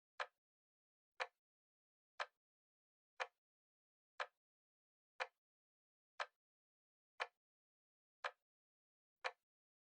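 A timer's clock-style tick, one short sharp tick every second, evenly spaced, counting off the seconds.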